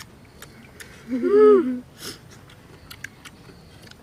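A child's short drawn-out vocal sound of enjoyment, rising then falling in pitch, about a second in, amid faint clicks of chewing and lip-smacking on papaya.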